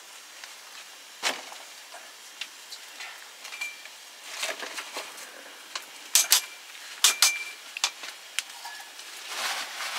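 Glass bottles and jars clinking and knocking as someone rummages through a basket of them, a couple of the clinks ringing briefly, with rustling in between.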